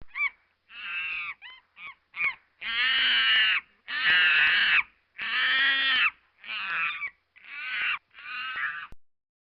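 A series of about ten harsh animal calls: a few short ones at first, then longer drawn-out calls of about a second each, stopping shortly before the end.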